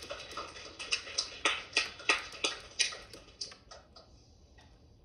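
A small audience clapping, sharp separate claps several a second that thin out and die away about four seconds in.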